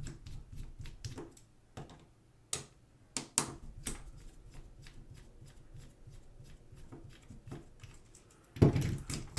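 Small plastic parts of a digital camera's lens housing being handled and pried apart: scattered clicks and a few sharp snaps, with a louder clatter near the end.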